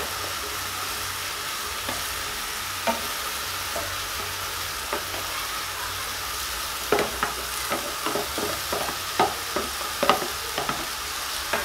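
Minced meat and sliced red onions sizzling in a stainless steel frying pan, stirred with a wooden spoon. Sharp knocks of the spoon and onion dish against the pan come now and then, then in a quick run in the second half as the last onions are pushed out of the dish.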